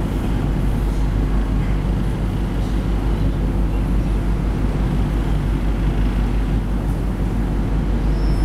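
A steady low rumble and hum with no breaks in it.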